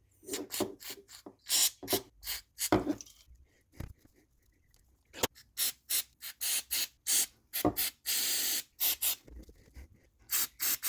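Aerosol electrical contact cleaner sprayed in many short spurts onto a car door-lock micro switch, with one longer spray about eight seconds in.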